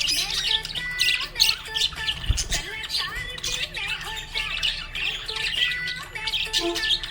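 Budgerigar chattering: a rapid, continuous stream of chirps and squawks.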